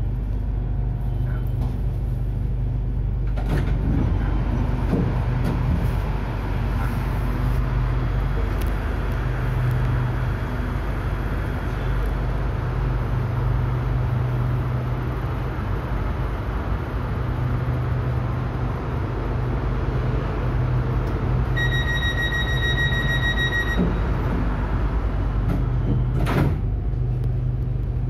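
Inside a stationary electric commuter train at a station: the train's onboard equipment gives a steady low hum. About three-quarters of the way through, a single high warning beep is held for about two seconds, and a few seconds later comes a knock as the sliding doors close.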